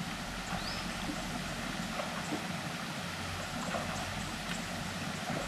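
Water splashing and running in a jungle pool as an elephant is bathed, over a steady background hiss with faint scattered clicks.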